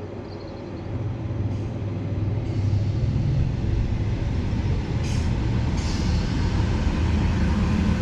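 Diesel multiple-unit passenger train pulling in along a station platform: its engine and wheels rumble louder over the first couple of seconds as it draws alongside, then run steadily, with two short hisses about five seconds in.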